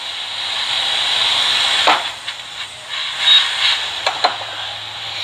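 Hot-air rework station blowing with a steady hiss, dipping after about two seconds, with a couple of sharp clicks.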